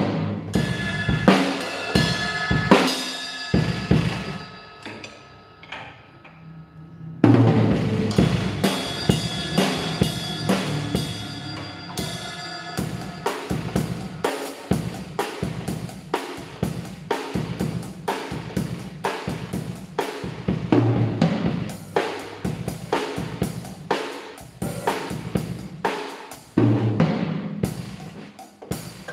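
Drum kit, one tom freshly fitted with a 12-inch Remo head, played with sticks: steady strokes on drums and hi-hat with cymbal crashes. Partway through the playing thins and a cymbal rings out and fades, then a loud crash about seven seconds in starts the beat again.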